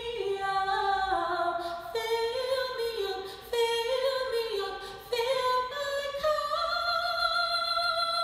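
A woman singing solo a cappella in short phrases that slide up and down, ending on one long held note from about six seconds in.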